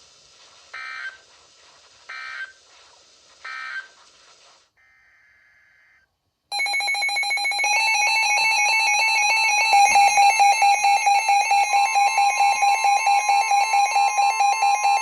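Emergency alert tones: three short digital data bursts, the end-of-message code of an EAS broadcast, then a loud electronic alarm beeping in a fast, steady pulse from about halfway in, with a second tone joining near the end.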